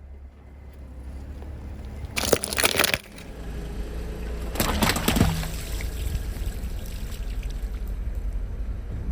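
A car rolling slowly over objects and crushing them under its tyres: a low steady rumble with two loud crushing bursts, the first about two seconds in and the second about five seconds in, each lasting under a second.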